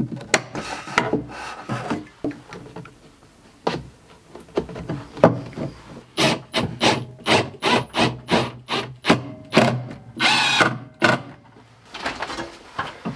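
Cordless drill-driver driving screws into a wooden floor joist in short, repeated spurts, with a longer run about ten seconds in, to mount a water shutoff valve. Clicks and knocks of tools and fittings being handled come first.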